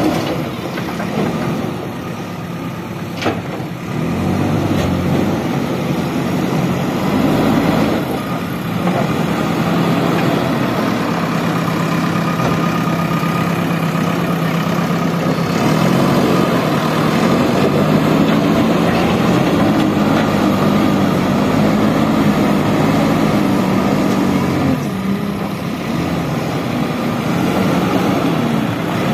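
JCB backhoe loader's diesel engine running, its speed rising and falling as the hydraulics work the arm and bucket. A single sharp knock about three seconds in.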